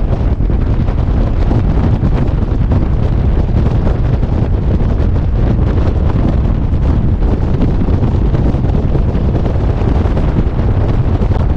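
Steady rush of wind buffeting the microphone in the open cockpit of a de Havilland Tiger Moth biplane in flight. The noise is loud and even, heaviest in the low end.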